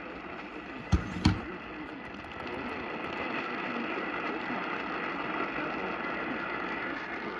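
AM radio static: a steady hiss and crackle from a poorly received station, with only faint traces of the broadcast under it. Two sharp clicks about a second in, a third of a second apart.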